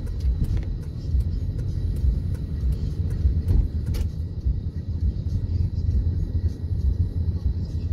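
Car road noise heard from inside the cabin: a steady low rumble from the tyres and engine as the car drives along.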